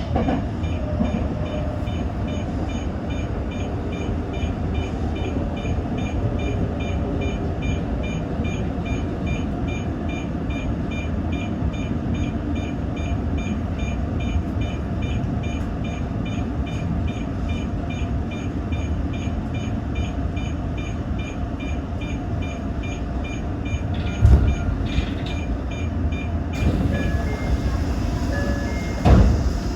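Tōyō Rapid Railway 2000 series electric train running with a steady low rumble as it comes into a station, with a regular high electronic beeping about twice a second that stops near the end. Two short thumps come in the last few seconds.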